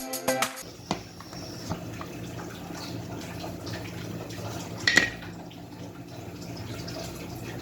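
Water running from a kitchen tap into a sink, with a few clinks in the first half second and a louder knock about five seconds in.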